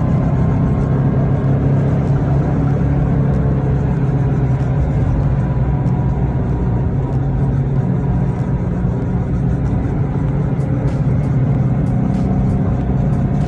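Subaru WRX STi being driven: steady engine and drivetrain noise with a thin constant whine over it. This is the noise the owner traces to the rear differential, which is leaking oil, though he is not sure what causes it.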